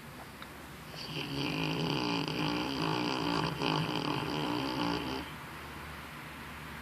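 A sleeping puppy snoring: one long snore that starts about a second in and lasts about four seconds, with a high, whistly edge over a low rattle.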